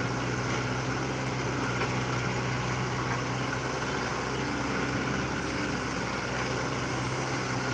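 Hydraulic excavator's diesel engine running steadily while the machine digs: a constant low hum that does not rise or fall.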